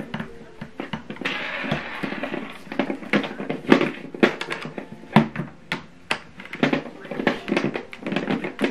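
Irregular metallic clicks and clinks of a screwdriver, screw and metal mounting bracket being handled and tightened on an LED light bar, with a short rustle about a second in.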